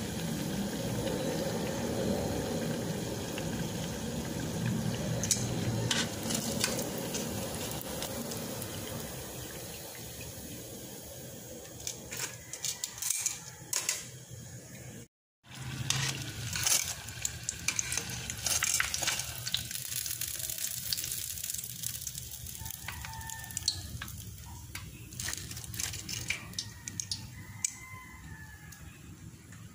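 Hot oil sizzling as breaded tuna pies deep-fry: a steady hiss that slowly fades, then after a brief dropout about halfway, scattered sharp crackles and pops.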